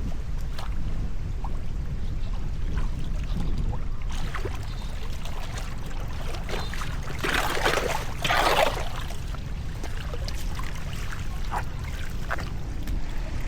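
Floodwater splashing and trickling over a steady low rumble, with a louder rush of water lasting about two seconds just past the middle.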